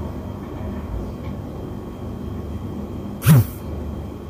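Steady low background rumble with a faint hum, broken about three seconds in by one short, loud sound that drops in pitch.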